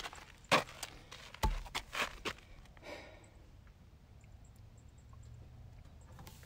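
A person's footsteps, about six quick steps over the first two and a half seconds with one heavier thud among them, then a short rush of noise near the three-second mark and a faint low rumble after it.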